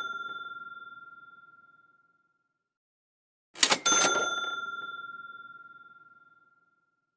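A bell ding repeated as a sound effect. The ring of one dies away over the first two seconds. About three and a half seconds in comes another: two quick clicks, then a bright ring that fades out over about three seconds.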